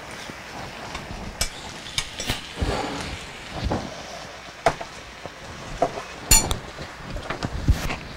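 Metal spoon clinking and tapping against a metal muffin tin while filling biscuit-dough cups: scattered, irregular clinks and light knocks, the sharpest and most ringing about six seconds in.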